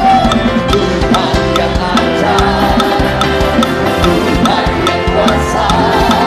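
Live praise band playing an upbeat worship song, driven by a busy drum-kit beat with evenly spaced strikes over sustained bass and keyboard chords.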